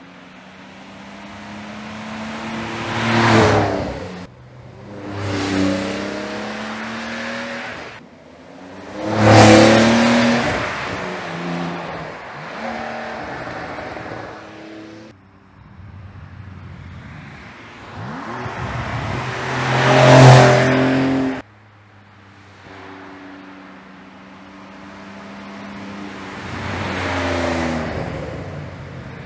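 2022 Porsche 911 Carrera GTS, twin-turbo 3.0-litre flat-six with sport exhaust, accelerating past several times. Each pass rises to a loud peak as the car approaches and drops in pitch and level as it goes by. There are about five passes, joined by abrupt cuts.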